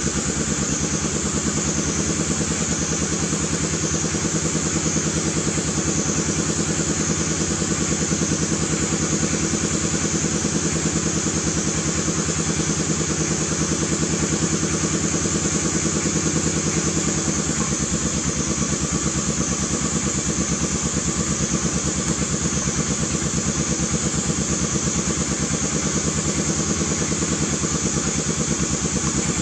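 A small engine running steadily at idle, with a fine even pulsing; its pitch shifts slightly about two-thirds of the way through.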